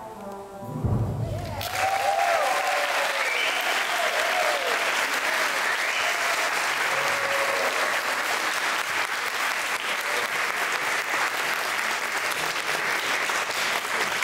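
Audience applauding, breaking out about two seconds in and keeping up steadily, with a few voices calling out over it.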